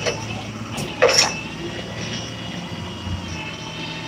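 Rollback tow truck's engine running as its hydraulic bed is lowered with a car on it: a steady drone with a thin high whine, and a short loud rush of noise about a second in.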